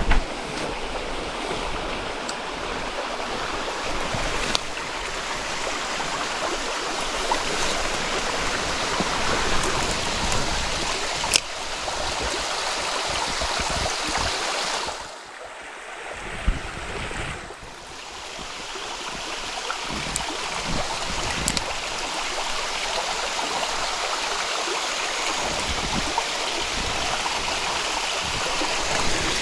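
Steady rush of flowing water in a stream or channel, with a few faint clicks. About halfway through it turns quieter and duller for two or three seconds, then returns.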